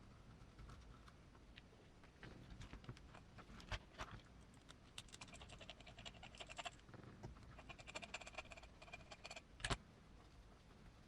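Faint clicks and taps of small parts and hand tools as a portal axle is fitted to a 1/18-scale RC crawler, with two short stretches of a steady buzzing tone in the second half.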